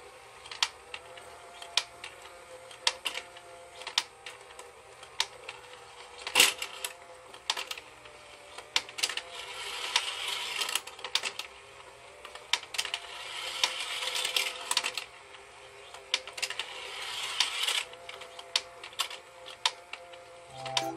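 Battery-powered children's plastic track toy running: a faint steady hum with sharp plastic clicks about once a second as the whale figure moves along the track. The sharpest click comes about six seconds in.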